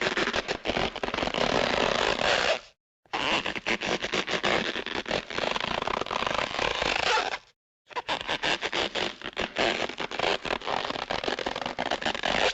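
Cartoon sound effect of a dense, rasping crackle, played three times for about four seconds each with short silences between.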